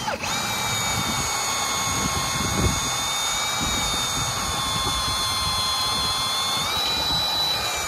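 Electric drill running steadily under load, boring a hole through a wooden fence post for a steel brace pin; its whine steps up slightly in pitch about seven seconds in.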